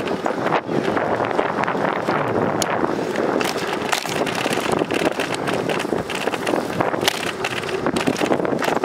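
Wind rushing over the microphone of a camera on a moving bicycle, a dense steady noise broken by frequent sharp crackles.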